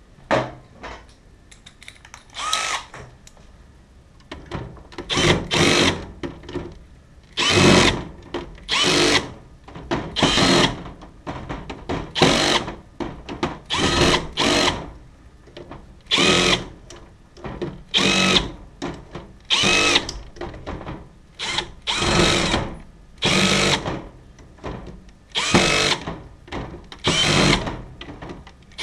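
A small electric power tool, drill-type, run in repeated short bursts of about a second each, its motor whine rising in pitch at each start.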